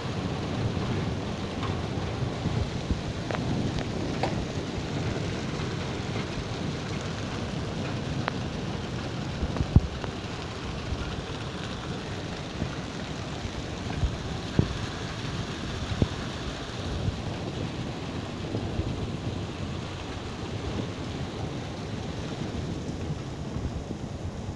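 Hailstorm: hailstones pelting a wet paved lane in a steady dense clatter, with sharper single hits standing out here and there, the loudest about ten seconds in.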